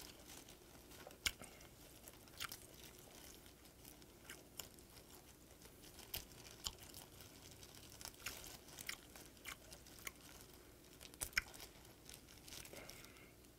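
Salt-grilled whiteleg shrimp being peeled by hand in plastic gloves: faint, irregular clicks and crackles of the shell cracking and coming away.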